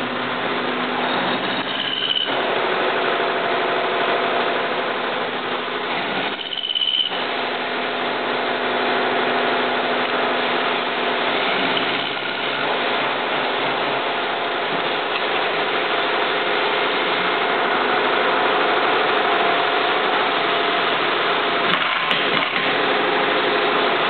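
Manual vertical milling machine running, its end mill cutting a metal bolt held in the vise: a steady, dense machining noise over a constant hum. A short high squeal sounds about two seconds in and again near seven seconds.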